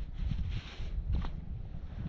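Wind buffeting the microphone, with a brief rustling scrape about half a second in and a short sharp scrape or click just after a second.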